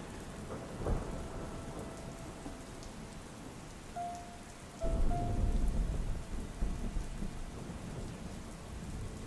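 Steady rain falling, with thunder: a short crack about a second in, then a deep rumble that sets in suddenly about five seconds in and rolls on. A few soft held musical notes sound faintly over the storm.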